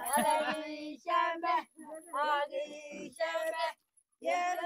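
High voices singing a song in short phrases, with a brief break to silence near the end.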